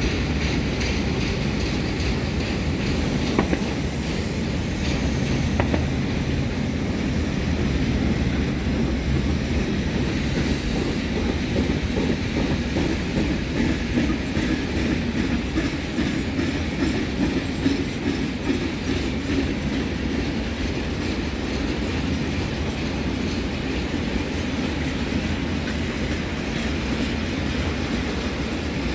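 Freight train of container flat wagons rolling past at a steady pace: a continuous rumble of wheels on the rails with a rhythmic clickety-clack.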